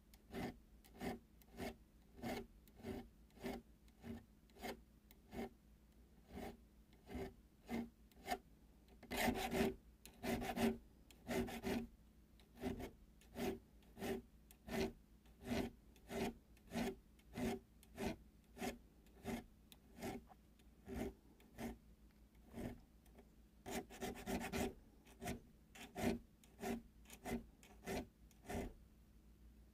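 Half-round needle file rasping back and forth on the spine notches of metal knife liners held in a vise: steady, even strokes a little under two a second. Twice the strokes run longer and louder for a second or two.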